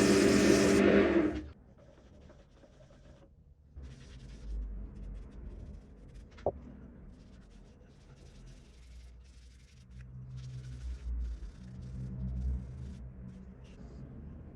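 Wood lathe motor running steadily, then cutting off about a second and a half in; after that, faint irregular rubbing and scraping on the wood, with one sharp tap midway.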